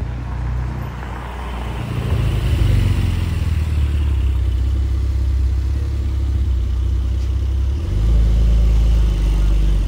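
Porsche 911 Targa (992) twin-turbo flat-six pulling away at low speed: a low, steady engine drone that rises about two seconds in and gets louder again near the end.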